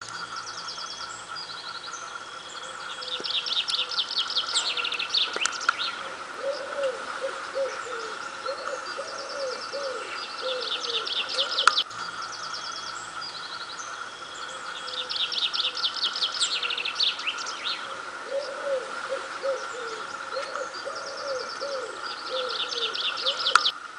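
Wood pigeons cooing in a run of soft low coos, mixed with fast high trills from small songbirds over a steady high tone. The same twelve-second passage of birdsong plays twice, with a sharp click where it repeats, as if looped.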